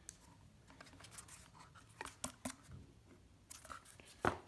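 Cardboard watch packaging being handled: faint rustles and scattered light clicks and taps, with a louder tap near the end.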